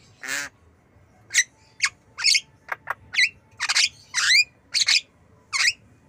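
Javan myna calling: one harsh rasping note, then a quick run of about ten short, sharp squawks and whistled notes, several sliding down in pitch.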